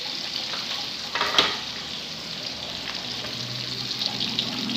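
Chopped garlic and onion sizzling in hot oil in a wok, a steady frying hiss, with one brief sharp knock about a second in.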